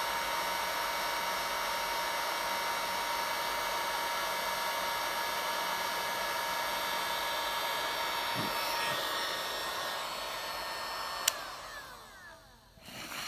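DeWalt electric heat gun running: its fan blows steadily with a thin whine while the temperature is set. Near the end the blowing winds down and a switch clicks.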